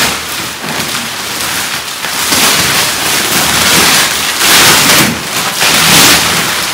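Clear plastic wrapping film crinkling and rustling loudly as it is pulled off and bunched up from a roll-packed foam mattress, in several swells.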